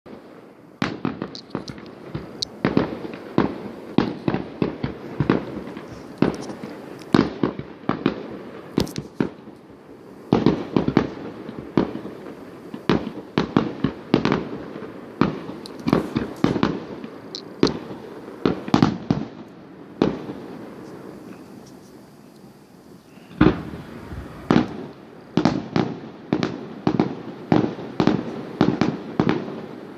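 Fireworks going off: many sharp bangs and pops in quick, irregular succession, easing off for about three seconds around two-thirds of the way through before starting again.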